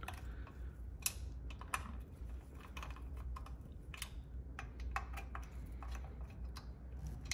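Irregular small metal clicks and ticks of a hand-held Torx bit driver turning small screws into an aluminium air-cleaner backing plate.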